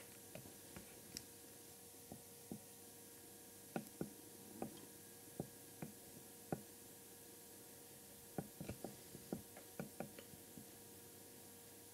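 Irregular light clicks and knocks, about twenty, scattered and bunching more closely near the end, over quiet room tone.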